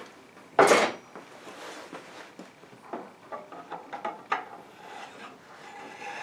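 Handling noise from a maple board and metal fittings on a stopped table saw. A short, loud scrape or knock comes about half a second in, followed by scattered light clicks and knocks.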